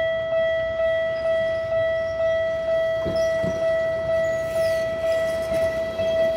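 Japanese railway level-crossing warning bell ringing, a ringing tone struck over and over about twice a second, each strike fading before the next: the crossing is closed for an approaching train.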